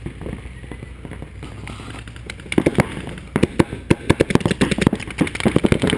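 Paintball markers firing: sparse pops at first, then from about halfway through, rapid bursts of shots in quick succession.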